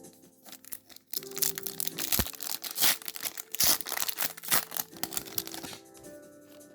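A trading-card booster pack wrapper crinkling and tearing as it is opened by hand, a loud rustling burst from about a second in until near the end, over soft background music.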